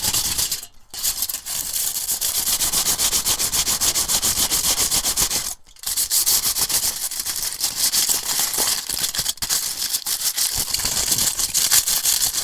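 Two pieces of tin foil rubbed together: a fast, steady, scratchy crinkling rustle that breaks off briefly about a second in and again halfway through.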